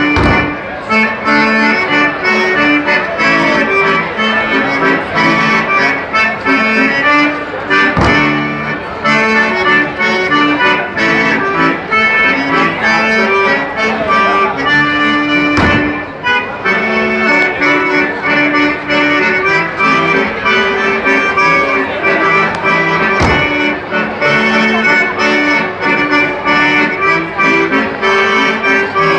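Accordion playing lively traditional German folk dance music with a steady beat. A sharp knock cuts through about every eight seconds, three times.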